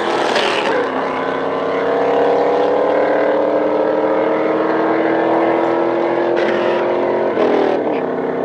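A car engine accelerating hard, its pitch climbing slowly through one long gear, with an upshift dropping the pitch just after the start and another near the end.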